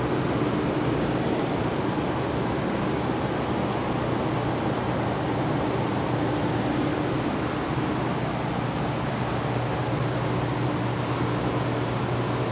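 Paint booth exhaust fan running steadily, a constant rushing noise with a low hum under it.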